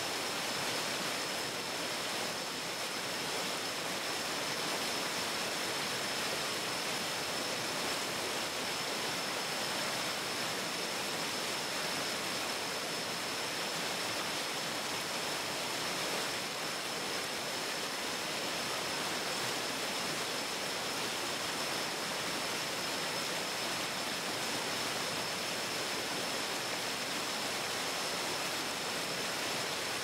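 Steady rushing of a forest stream, with a thin, steady high-pitched whine over it.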